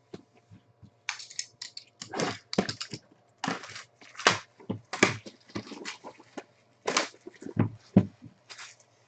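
Packaging crackling, rustling and tearing in irregular bursts as a sealed box of hockey trading cards is opened by hand.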